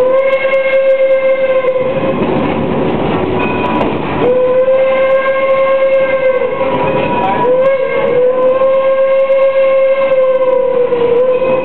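Steam locomotive whistle, from the train's 1897 Baldwin engine No. 7, blown in three long blasts, the last the longest, over the steady rumble of the moving train.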